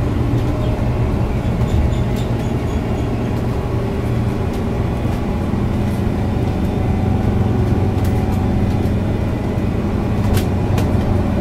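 MAN D2066LUH 10.5-litre six-cylinder turbo diesel of a MAN A69 city bus, heard from inside the passenger cabin while the bus drives along: a steady engine hum over road noise. The engine note grows a little stronger after about six seconds, and a sharp click sounds near the end.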